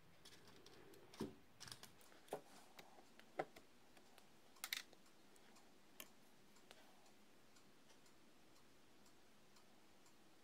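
Light taps and clicks as a bottle cap and paintbrush are handled against the foil paint plate, water cup and paper, half a dozen in the first six seconds, then only faint repeated ticking.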